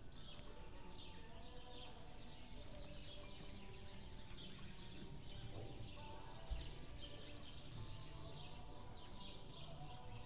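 Faint, rapid chirping of small birds, short falling chirps over and over, over a steady low hum. A single dull thump comes about six and a half seconds in.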